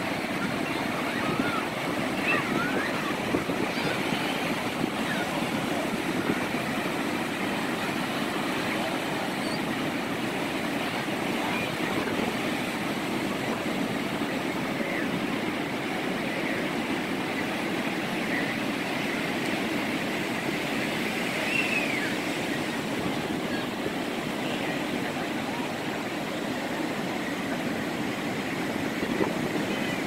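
Ocean surf breaking and washing in steadily along the shore, with a few faint distant voices of people in the water.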